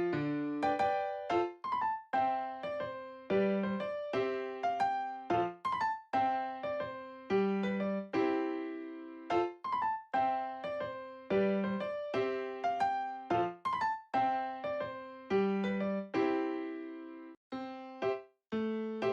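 Background music: a keyboard tune in a piano-like tone, notes struck in a regular rhythm and fading after each strike, with a couple of brief breaks near the end.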